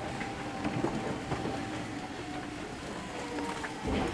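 Interior running noise of an electric commuter train rolling along a station platform as it pulls in, with light clicks from the wheels over rail joints and a faint steady tone. The noise swells briefly near the end.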